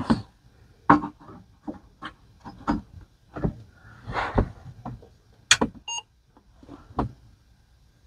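Clicks, knocks and rustles of circuit cards being handled and pushed into an Apple II Plus's expansion slots. About six seconds in, a short electronic beep.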